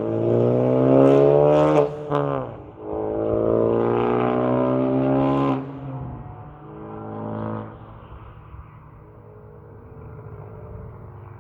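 Mazda Miata's four-cylinder engine being revved: two long revs and a shorter blip, pitch climbing and falling each time. It then settles to a quieter steady idle for the last few seconds.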